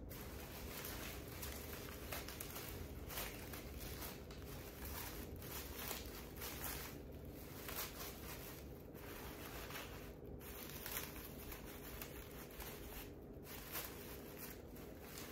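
Faint rustling and handling noises with scattered soft clicks, over a steady background hiss and a low hum.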